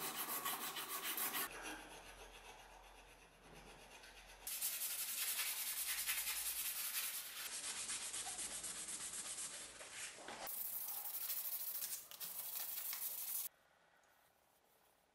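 Sandpaper rubbing on a wooden knife handle and its brass guard in quick back-and-forth strokes, a scratchy rasping in several short stretches that stops near the end.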